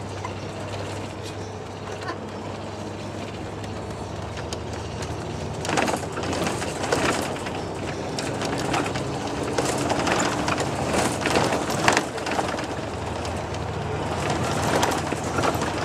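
Steady engine and road noise inside a moving vehicle, a low drone under a hiss of tyres and wind, with a run of short knocks and rattles between about six and twelve seconds in.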